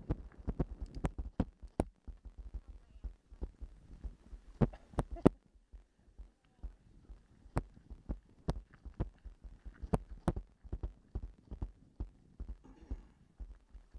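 Bicycle jolting over a rough dirt trail: irregular knocks, clicks and rattles from the bike and the camera mounted on it, with no engine.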